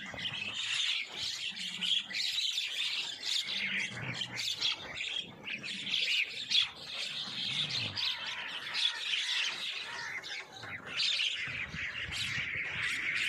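Many birds chirping and squawking at once in a dense, continuous chorus of short, high calls.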